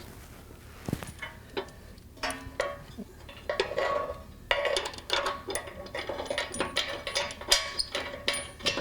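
Irregular metal clicks and clinks as a bolt and its hardware are worked into a steel bumper and frame bracket. The clicks are sparse at first and come thick and fast from about halfway.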